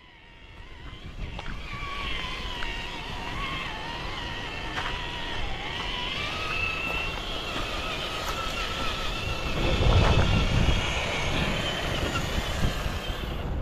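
The electric motor and gearbox of a 1/7-scale MK-07 RC Jeep crawler whine, the pitch wavering up and down with the throttle. Underneath is a low rustle of wind on the microphone, which swells about ten seconds in.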